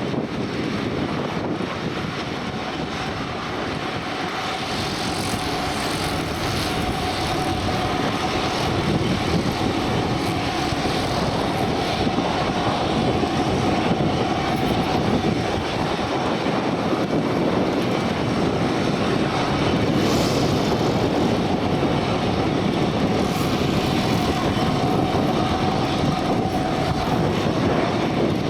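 Aircraft engines running steadily with a constant mid-pitched whine, the sound slowly growing louder over the first several seconds.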